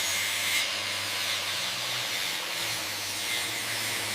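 Steady hissing noise with a low hum underneath: a workshop tool working on steel.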